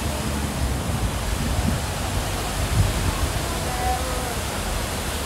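Steady splashing and rushing of fountain water, with faint voices of passers-by.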